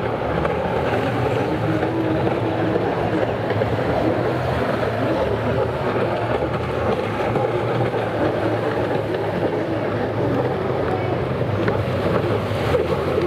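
Engines of racing stand-up jet skis running at speed, a steady drone heard at a distance.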